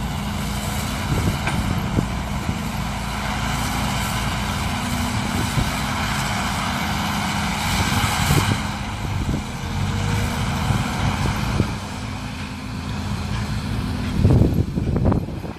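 Sumitomo excavator's diesel engine running steadily, with a rush of hiss about eight seconds in and a louder rumble near the end.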